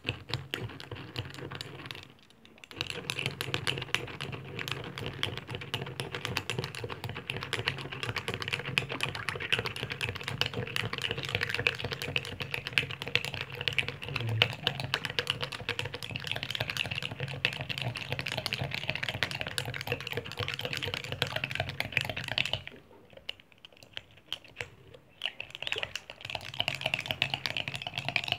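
Metal teaspoon stirring fast in a small Turkish tea glass, clinking rapidly against the glass while sugar cubes dissolve in cold water. The stirring stops briefly about two seconds in, and for a few seconds near the end.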